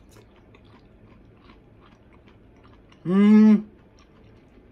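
A person chewing a mouthful of pork, green pepper and daikon stir-fry over rice, with faint small wet clicks of the chewing. About three seconds in comes a short, loud closed-mouth hum, "mm".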